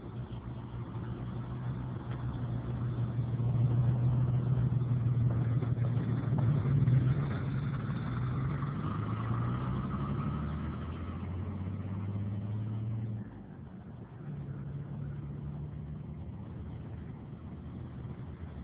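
Diesel locomotive engines running out of sight, a steady low hum whose pitch shifts in steps, as when the throttle is moved, and that drops away suddenly for about a second before coming back.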